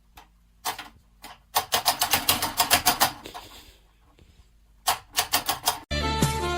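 A rapid run of sharp clicks, several a second, in two spells; music starts near the end.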